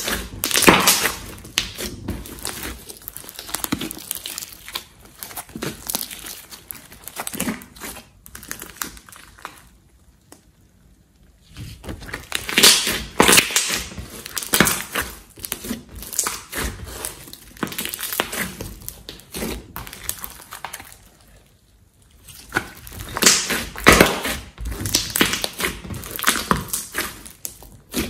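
Hands squeezing and pressing a large lump of glossy slime, giving dense wet crackles and pops as it is worked. The sound comes in three long stretches with short pauses between them.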